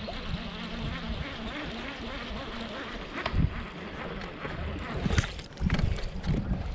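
Wind and water noise on an open fishing boat, with a few sharp knocks about three and a half and five seconds in.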